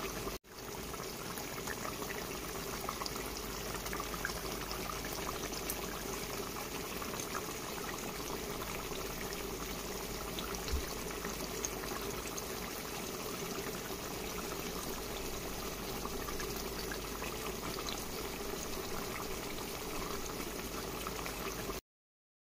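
Stewed chicken simmering in a pot of brown gravy: a steady bubbling with faint scattered pops. The sound cuts off suddenly near the end.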